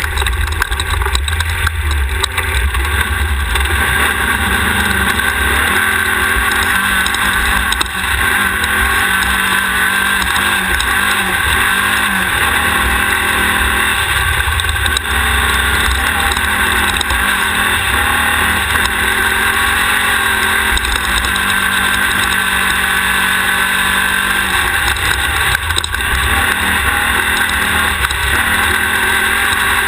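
Race buggy's air-cooled VW 1600 engine running hard under load, its pitch rising and falling with the throttle over a constant heavy rumble.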